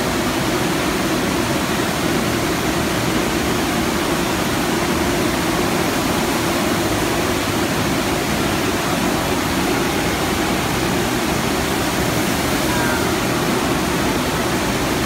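Steady rushing water from an indoor surf simulator, its pumps driving a thin sheet of water up a padded slope, loud and unchanging throughout.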